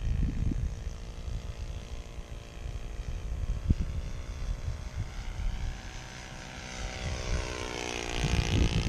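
Magnum 30 four-stroke engine of a radio-control model airplane in flight, a steady buzz that grows louder as the plane comes back by, its pitch bending as it passes near the end. Wind rumbles on the microphone at times.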